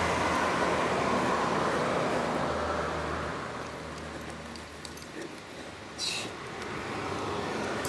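Steady background rumble of outdoor noise, easing a little after about three seconds, with one brief sharp click about six seconds in.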